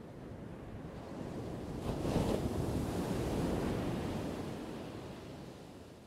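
Ocean surf: a single wave rolls in, surges loudest about two seconds in, then washes back out and fades away.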